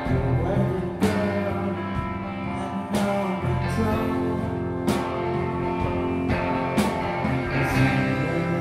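Live rock band playing an instrumental passage: electric guitar, bass and a drum kit, with sharp drum and cymbal hits roughly every one to two seconds.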